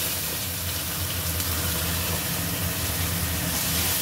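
Wet tomato, green chilli and ginger paste sizzling as it goes into hot oil in a steel kadai and is stirred, the hiss growing brighter near the end. A steady low hum runs underneath.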